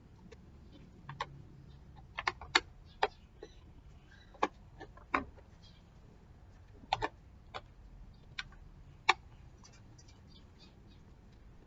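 Irregular sharp clicks and taps of small hard parts and tools being handled while an electric fan is worked on, a dozen or more in the first nine seconds, loosely bunched.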